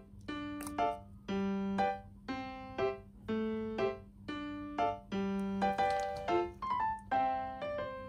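Light background music: a bouncy keyboard tune of short struck notes and chords, about two a second.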